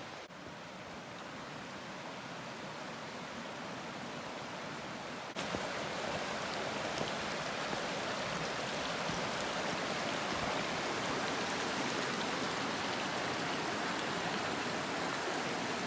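Rushing water of a mountain stream, a steady even hiss that jumps louder about five seconds in.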